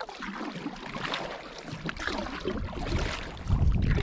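Canoe paddle strokes and water splashing and lapping against the hull, an uneven wash of small splashes. About three and a half seconds in, a louder low rumble on the microphone joins it.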